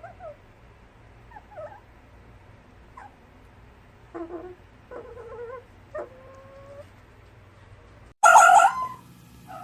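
Red fox giving a series of short whimpering, yipping calls about a second apart, a couple trailing into a brief whine, then one much louder, harsh call about eight seconds in.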